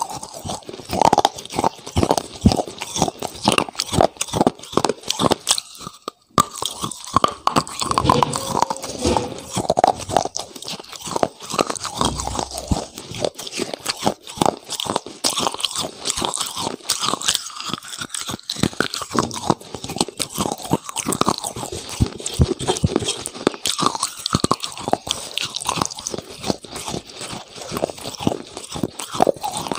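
Close-miked eating: a steady run of crisp crunches and chewing as crunchy food is bitten and chewed right at the microphone, with a brief pause about six seconds in.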